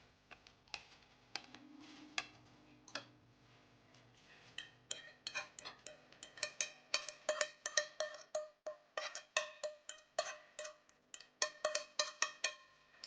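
Metal forks clicking and scraping against dishware as cooked chicken is shredded and moved, in quick irregular clinks that grow busier after about four seconds.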